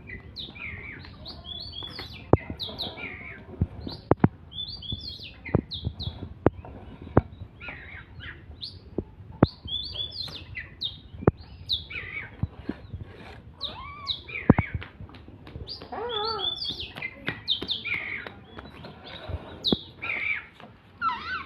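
Oriental magpie-robin in full song: a rapid, varied stream of short whistles and chirps, with sharp clicks scattered among them.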